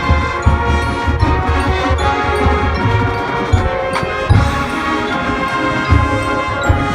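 High school marching band playing: sustained brass chords over bass drums and percussion.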